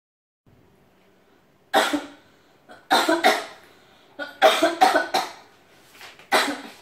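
A person coughing hard with the mouth uncovered: several loud coughs in quick fits, the first about two seconds in and the last near the end.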